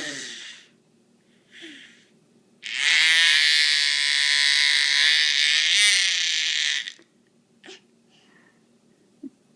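A person making a funny, drawn-out, raspy vocal noise lasting about four seconds at a fairly steady pitch, after the falling tail of an earlier one at the start and a short faint sound between them.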